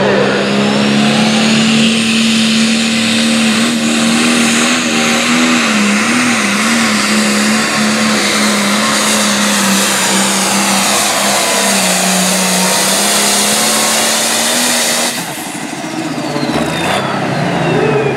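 Turbocharged diesel pulling tractor at full throttle, dragging a weight-transfer sled. The engine holds a steady pitch under a high turbo whine that rises over the first couple of seconds, and the pitch wavers briefly midway. About fifteen seconds in the throttle is cut, the sound drops sharply, and the turbo whine falls away as it winds down at the end of the pull.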